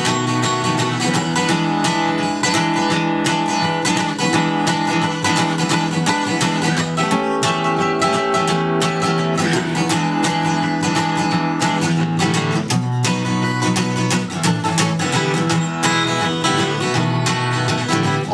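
Acoustic guitar strummed in a steady, rockabilly-style rhythm, with no singing over it.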